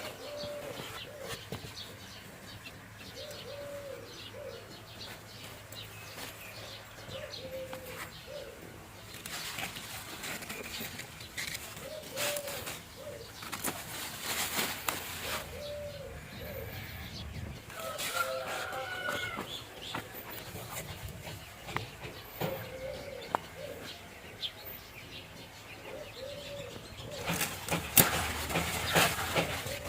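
Doves cooing, short low coos repeated in small groups, with a few bursts of noise and a higher bird call about two-thirds of the way through.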